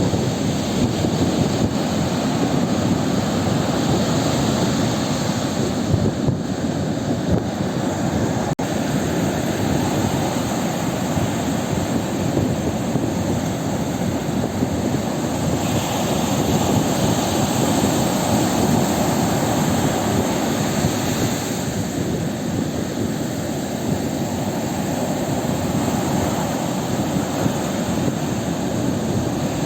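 Ocean surf: a continuous dense rush of breaking waves that swells and eases slowly, with a rumbling low-heavy character.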